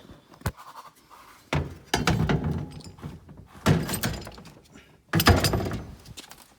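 Tools being handled in a steel roller toolbox, with a series of separate knocks and rattling thunks. The loudest comes about five seconds in.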